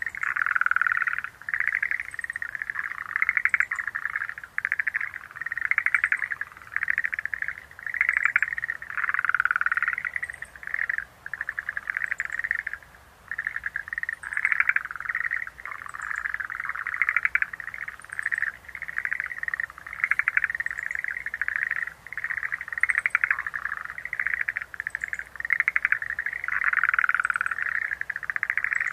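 A chorus of Schlegel's green tree frogs calling: overlapping rapid, pulsed trills that rise and fall without a break. Faint, short high chirps recur every second or two.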